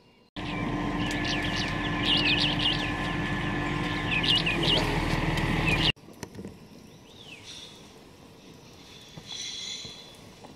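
Small birds chirping in quick clusters of high notes over a steady low rumble and hum, for about five and a half seconds. It then cuts abruptly to a much quieter stretch with faint, sparse bird calls and a short call near the end.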